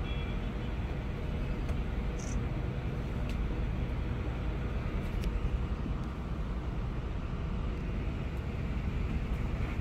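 A river tour boat's engine running steadily as the boat cruises, a low, even rumble with a faint steady hum.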